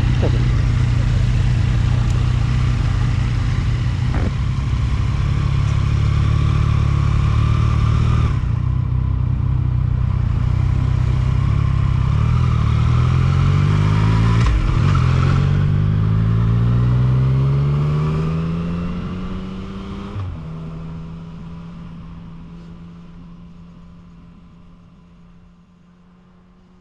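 Yamaha XSR900's three-cylinder engine accelerating, its note rising through several gears with a drop in pitch at each shift, then settling to a steady cruise as the sound fades away over the last several seconds.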